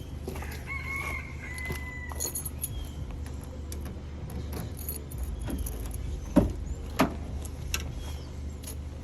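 Clicks and knocks from parts being handled, with two sharp knocks about six and seven seconds in, over a steady low hum. A brief high squeak sounds about a second in.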